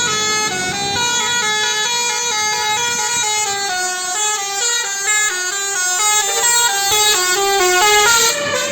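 Indonesian bus 'telolet' musical horn, a set of multi-tone air horns playing a fast tune of short stepped notes that rise and fall. It gets a little louder near the end.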